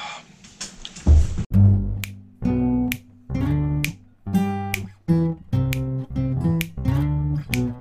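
Guitar music strumming chords, starting about a second in.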